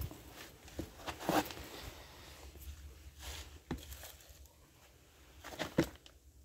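Light handling noise from plastic cups and containers: a few scattered knocks and rustles over a low rumble.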